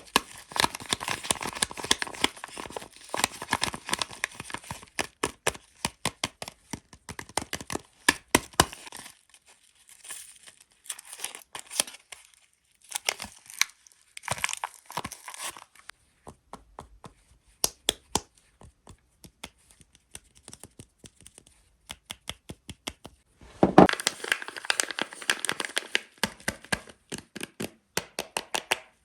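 Soap wrappers being torn open and crinkled by hand, with many sharp crackles. The crackling is busy for the first several seconds, thins to scattered quieter crackles through the middle, and turns busy again about three-quarters of the way in.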